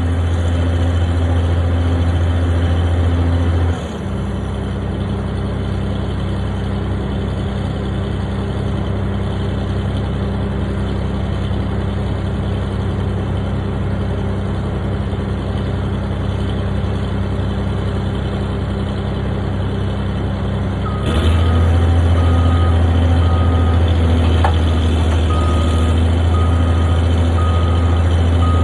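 Construction machine's engine running, its revs dropping about four seconds in and rising again about three-quarters of the way through. With the higher revs its reversing alarm beeps steadily, about once a second, as the machine backs up.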